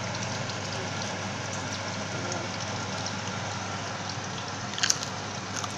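Potato slices deep-frying in hot oil: a steady sizzle with constant small crackles. A sharp clink sounds near the end.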